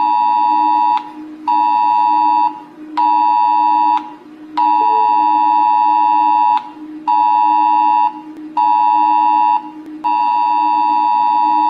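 Smartphone emergency alert tone (RO-Alert wireless emergency alert): a loud two-pitch attention signal sounding in a repeating cadence of one long blast of about two seconds followed by two one-second blasts, with half-second gaps between.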